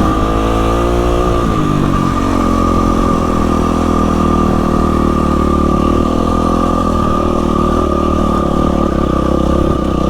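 Yamaha WR450F dirt bike's single-cylinder four-stroke engine running while riding a trail, its pitch falling in the first second or two as the rider eases off, then holding steady.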